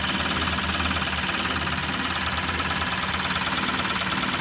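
Freshly rebuilt Maruti Suzuki Super Carry two-cylinder diesel engine idling steadily just after being started. Its running note is even, and the mechanic judges the engine noise to be all correct.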